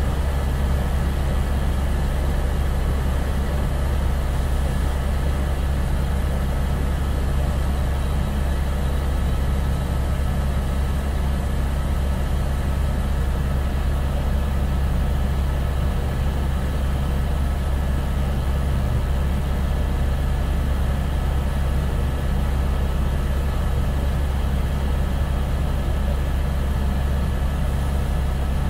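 Steady drone of an aircraft's engine heard from inside the cabin in flight, a deep hum with a few steady higher tones over it.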